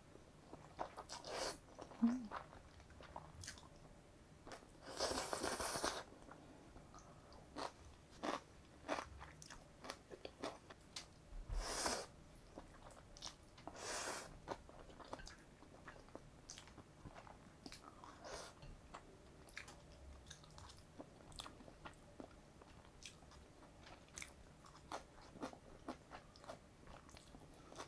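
A person eating Chapagetti noodles with chopsticks: soft chewing and wet lip-smacking clicks, broken by a few longer slurps of noodles, the longest about five seconds in and others near twelve and fourteen seconds.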